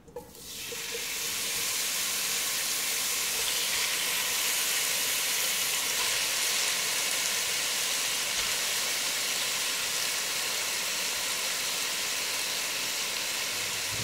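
Strips of raw beef sizzling in hot oil in a pot: the hiss starts abruptly as the meat goes in, swells over the first second or two, then holds steady and loud.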